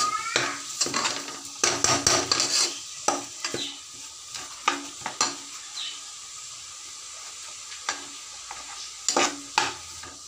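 Steel spoon stirring diced bottle gourd, onion and tomato sautéing in an aluminium pressure cooker: repeated scrapes and knocks of the spoon against the pot over a faint sizzle. The stirring is busiest in the first few seconds and again near the end.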